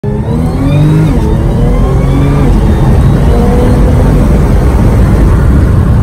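Car engine revving, its pitch rising and falling a few times in the first three seconds, then running as a loud, steady rumble.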